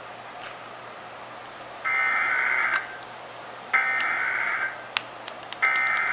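Emergency Alert System SAME header over broadcast audio: three identical bursts of two-tone digital data, each just under a second long and about two seconds apart. This data burst starts an EAS test message.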